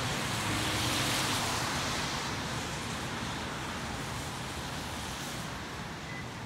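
Traffic on a wet road: the steady hiss of tyres on wet asphalt, swelling as a vehicle passes about a second in, then slowly fading.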